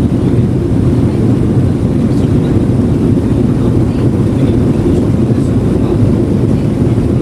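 Steady low cabin drone of a Boeing 737-800 in the climb, heard from a rear window seat: the CFM56-7B engines at climb power and the rush of air along the fuselage.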